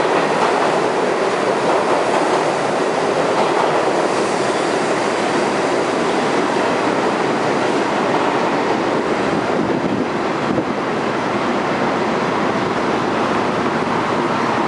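St. Louis Car Co. R42 subway train departing: a steady running noise of steel wheels on the rails that stays at the same loudness as the train pulls away into the tunnel.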